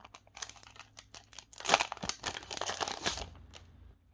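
Pokémon booster pack and trading cards being handled: a run of rapid clicks and rustling, densest and loudest in the middle.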